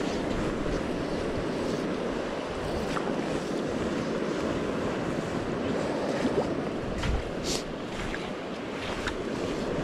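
Steady rush of a fast, high-running river, mixed with wind on the microphone. A few faint clicks come late on.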